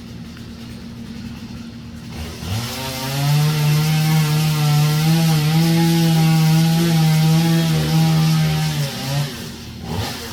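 Chainsaw revving up about two seconds in and running at high, slightly wavering throttle for about six seconds, as when cutting wood, then dropping off.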